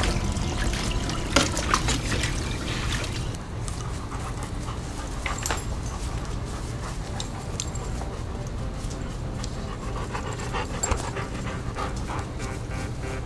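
Chesapeake Bay Retrievers panting close to the microphone, with scattered clicks and scuffles as they play.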